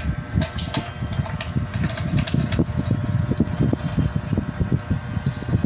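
Light plastic clicks and handling knocks from control knobs being pushed onto and turned on a turbo broiler's lid, mostly in the first half, over a steady low rumble.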